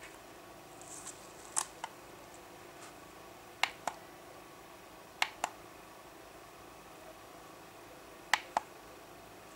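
Plastic push-buttons on the back of a Technoline WS 6762 weather station clicking: four press-and-release pairs of sharp clicks, each pair about a quarter second apart, spaced a couple of seconds apart.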